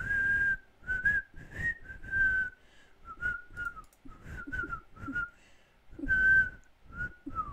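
A person whistling into a close microphone: a string of about a dozen short notes wandering up and down a little in pitch, each with a puff of breath on the microphone.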